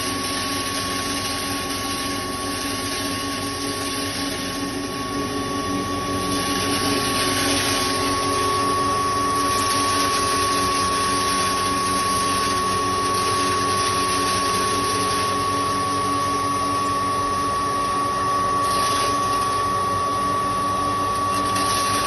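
A 3 HP maize grinding mill running steadily, with a constant high whine over the machine noise; it gets a little louder about six seconds in.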